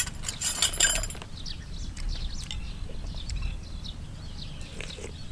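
Short burst of eating noises in the first second, quick sharp clicks and clinks at the bowl, followed by small birds chirping many times.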